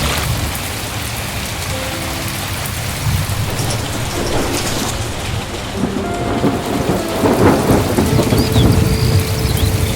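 Heavy rain pouring steadily under a low rolling rumble of thunder that swells louder in the second half.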